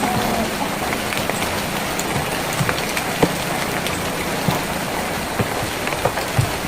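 Steady rain falling on a tin roof: a constant hiss of rain with many scattered sharper drops striking the metal.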